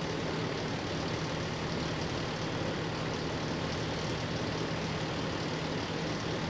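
Fire engine's engine running steadily, a constant drone with a low hum.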